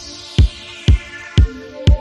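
Electronic background music with a steady kick-drum beat about twice a second, under a sweep that falls in pitch.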